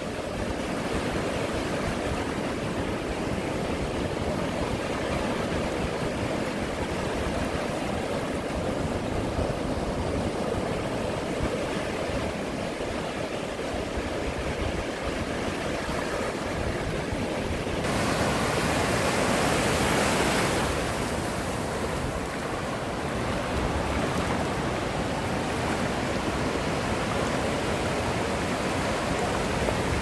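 Ocean surf washing steadily onto a beach, with one wave breaking louder for about three seconds a little over halfway through.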